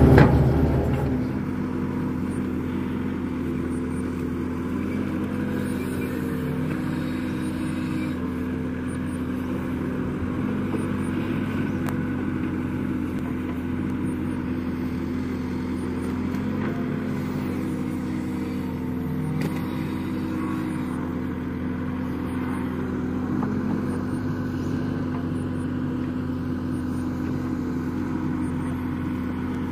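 Diesel engine of a Kato crawler excavator running at a steady working speed as the machine digs, an even hum that holds its pitch throughout.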